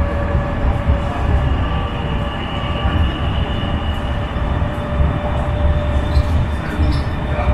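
Cabin noise of an East Rail Line electric commuter train on the move: a steady low rumble from the running gear with a thin steady whine over it, and a higher whine that sounds for a couple of seconds about one to four seconds in.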